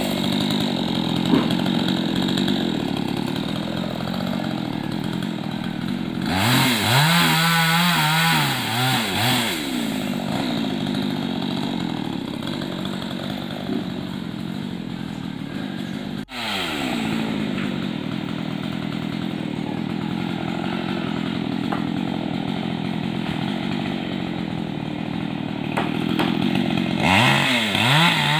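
Two-stroke chainsaw cutting into a jabon tree, running steadily under load, with two stretches where the engine pitch swings up and down as it is revved, about a third of the way in and near the end. The sound drops out for an instant just past halfway.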